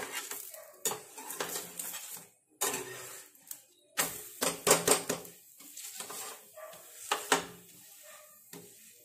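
Steel spatula scraping and clacking on a nonstick frying pan as a thin pancake is lifted, flipped and pressed down, with a cluster of sharp clacks about four seconds in.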